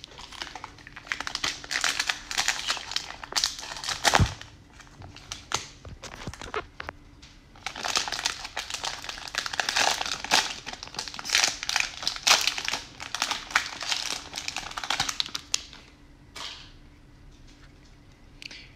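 Plastic wrapper of a Topps baseball card fat pack being torn open and crumpled, crinkling in bursts, with a single sharp knock about four seconds in. It turns quieter after about sixteen seconds.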